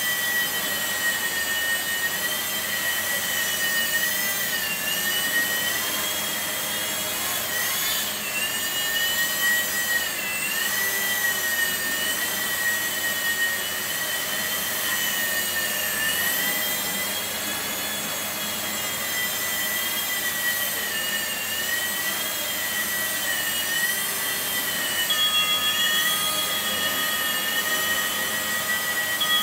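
Blade mSR micro RC helicopter's small electric motors whining, the pitch wavering up and down as it flies, over the steady rush of a pedestal fan. An extra steady higher tone joins about four seconds before the end.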